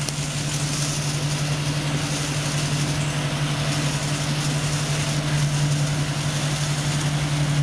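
Combine harvester running steadily while harvesting grain: a steady engine hum under a broad hiss from the working machinery, a little louder in the second half.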